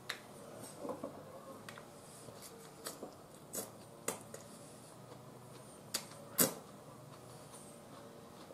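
Chopsticks clicking against a ceramic rice bowl while eating: about half a dozen short, sharp clicks spread out, the loudest about six seconds in.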